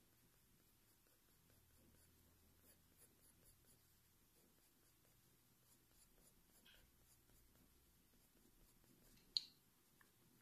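Very faint scratching of a Faber-Castell Polychromos coloured pencil shading on paper, with one short, sharper click about nine seconds in.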